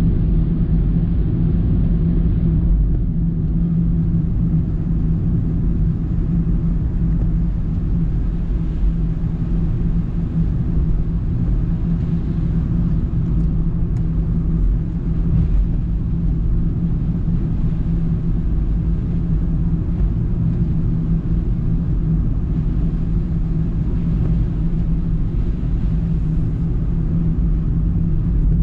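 Steady low rumble of a car's engine and tyres on a wet road, heard from inside the cabin while driving at an even speed.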